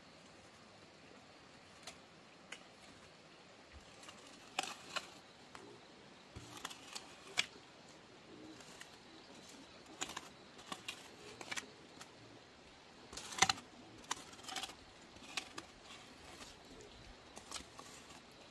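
Hands picking over the ground while clearing out a pig pen: scattered light clicks, taps and rustles that come in small clusters with short pauses between, the loudest group a little past the middle.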